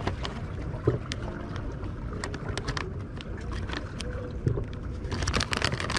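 Plastic bait bag crinkling and crackling as it is handled, with scattered sharp crackles that grow busier near the end, over a steady low rumble of wind and water.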